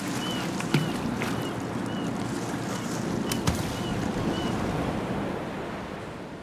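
Sea and fishing-boat deck noise: a steady wash with scattered knocks, under a string of short high calls that stop about four and a half seconds in. The level eases off near the end.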